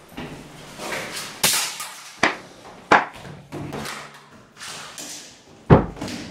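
A scuffle on a tiled floor: two people grappling, with bodies and blows landing in four sharp thumps among shuffling noise, the heaviest thump near the end.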